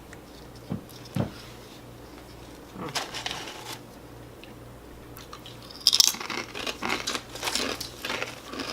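Crunching and chewing of Calbee lightly salted potato chips, in short crisp bursts, loudest about six seconds in.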